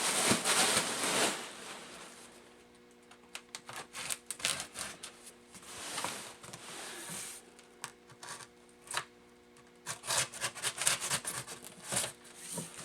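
Cardboard shipping boxes being handled and opened: a loud scraping rustle at first, then scattered clicks and taps, with a dense run of clicking near the end.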